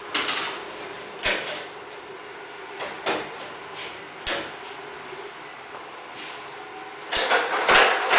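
Steel kart lift trolley and the kart chassis on it clanking as the kart is tilted into a diagonal position: a few separate knocks and rattles in the first half, then a louder cluster of clanks near the end. A steady low hum runs underneath.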